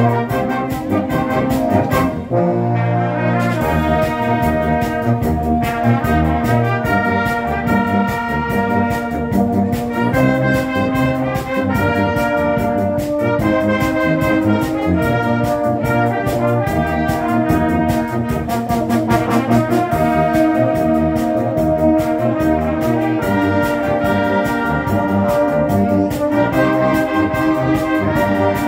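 Live concert wind band playing: flutes, saxophones and low brass such as euphoniums sounding together in sustained chords that shift every second or two over a moving bass line.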